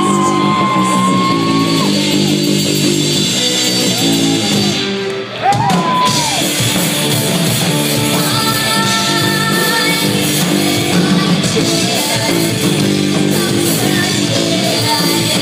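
A rock band playing live on electric guitars, with a woman singing long held notes in the first couple of seconds. The music drops briefly about five seconds in, then comes back in full.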